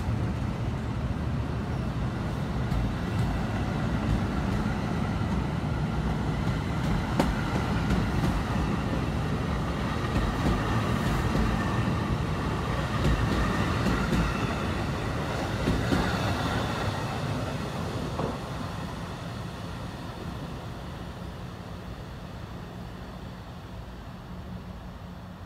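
NJ Transit multilevel commuter train rolling past: a steady rumble of steel wheels on rail with a few sharp clicks and a faint high whine. About eighteen seconds in, the sound starts to fade as the train moves off down the track.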